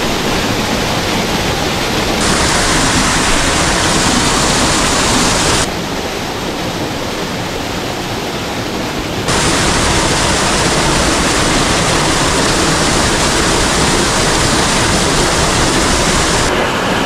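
Rushing water of a waterfall in a mountain stream gorge: a loud, steady hiss whose tone and loudness jump abruptly a few times.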